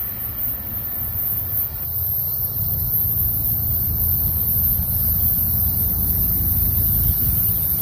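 Low rumble of an approaching Florida East Coast Railway freight train's diesel locomotives, still far off, slowly growing louder.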